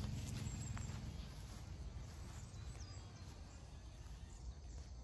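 Quiet outdoor ambience with a low rumble, most likely wind on the microphone, a little louder in the first second. A faint tick comes about a second in, and a faint high chirp comes near the middle.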